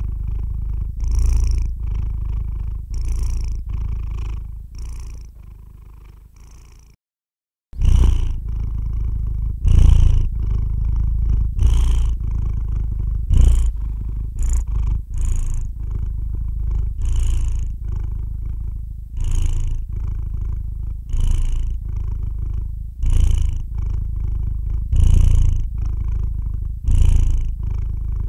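Sleeping domestic calico cat purring: a steady low rumble that swells with each breath, about one swell every two seconds. The sound fades and drops out for a moment about seven seconds in, then the purring carries on as before.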